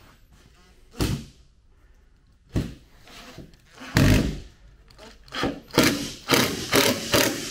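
Cordless Makita impact driver driving a self-drilling screw into the aluminium rail of a roof tent base, in short trigger bursts: one about four seconds in, then a quick run of them, about three a second, near the end. A couple of single knocks come before it.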